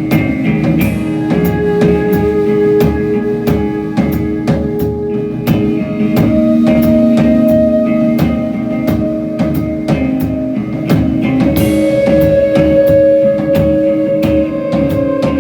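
A rock band playing live: guitars holding sustained notes over a steady drum beat, with a cymbal crash about a second in and another near the end.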